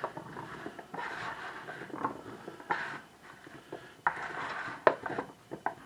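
Cubed potatoes coated in sauce being tossed and stirred in a large mixing bowl with a slotted spatula and by hand, a wet scraping and rustling. A couple of sharp clicks come near the end.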